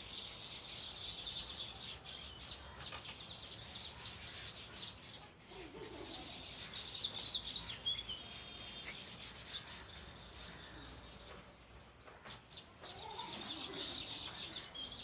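Small birds chirping and twittering continuously, with a lower call heard twice in the background.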